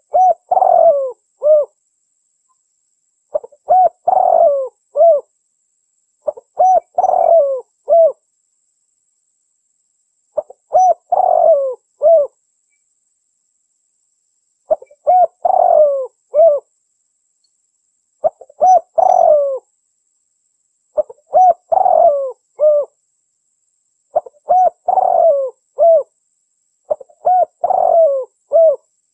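Spotted dove cooing: a short phrase of a few coos, repeated nine times at gaps of about three to four seconds.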